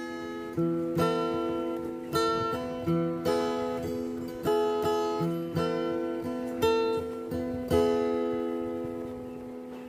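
Background music: acoustic guitar strumming slow chords, about one a second, each struck and left to decay, the last one about eight seconds in left to ring out.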